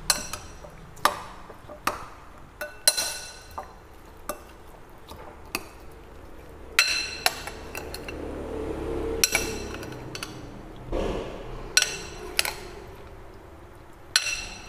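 Metal spoon clinking and scraping against a ceramic bowl while tossing pieces of marinated pork belly to coat them. About a dozen irregular sharp clinks, each with a brief ring.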